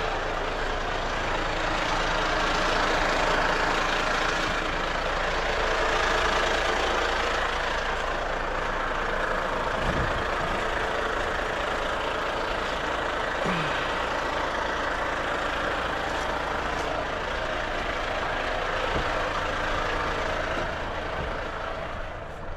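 Volvo FH460 truck's 13-litre six-cylinder diesel idling steadily while parked, left running to cool the turbo, with a brief knock about ten seconds in.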